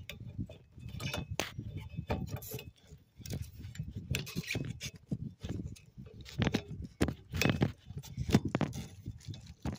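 Irregular plastic and metal clicks and rattles as a windshield wiper blade is worked onto the J-hook of the wiper arm, with hands handling the blade close to the microphone.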